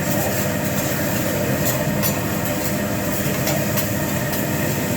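Steady noise at a hibachi grill table, with a few faint sharp clicks about a second and a half in and again around three and a half seconds.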